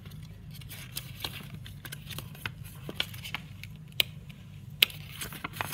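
Folded paper checklist leaflet being handled and unfolded: irregular crinkles and sharp paper snaps, the sharpest about four and five seconds in, over a steady low hum.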